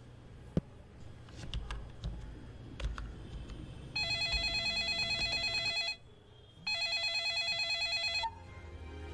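A few faint taps on a laptop keyboard, then a smartphone ringtone for an incoming call: two warbling electronic ring bursts of about two seconds each, a short gap between them.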